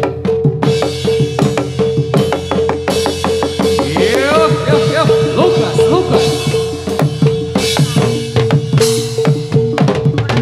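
Jathilan accompaniment music over a sound system: fast, dense drumming with a steady held tone beneath it. About four to six seconds in, a pitched line sweeps up and down over the drums.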